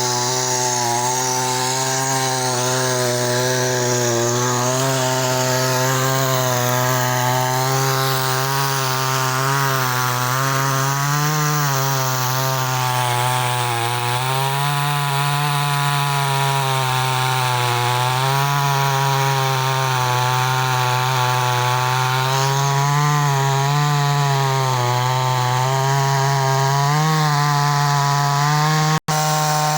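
Chainsaw running under load, cutting into a tree, its engine note sagging and recovering over and over as the chain bites into the wood. The sound cuts out for an instant near the end.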